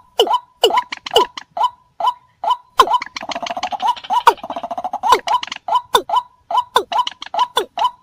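Bird-lure recording of paddy-field rails calling: short loud notes repeated about twice a second, each dropping sharply in pitch, with a quicker, denser run of chattering notes in the middle.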